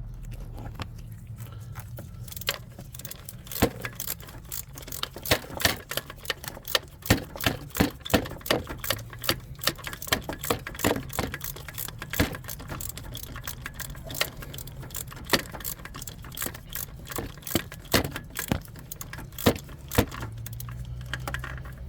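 A 3/8-inch hand ratchet clicking in short, irregular strokes, backing out the starter motor's lower 17 mm mounting bolt.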